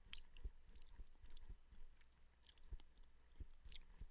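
Faint, irregular small clicks and soft thumps, about one or two a second.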